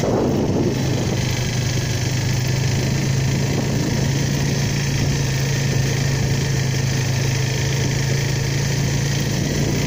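ATV engine running at a steady, unchanging note while being ridden.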